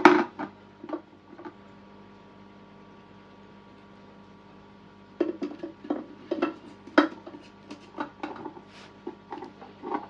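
A hard plastic basket clicking and knocking against the glass of a small terrarium as it is set inside and shifted into place. A loud knock and a few taps come at the start, then a quiet pause, then a run of irregular clicks and knocks through the second half.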